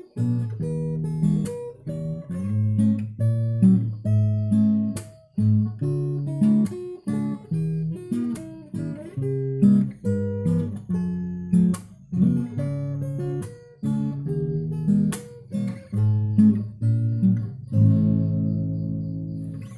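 Instrumental background music of plucked acoustic guitar: picked notes and chords, each ringing and dying away, with a held chord near the end.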